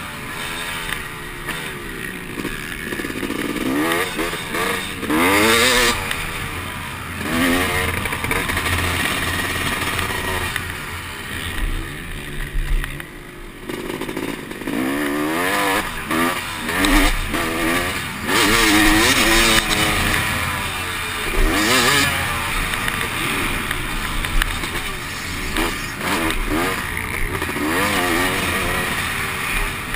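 Dirt bike engine heard from the rider's helmet, revving hard and dropping off again and again as the throttle is worked through the turns and straights of a motocross track, the pitch climbing and falling in repeated sweeps, with wind rushing over the helmet.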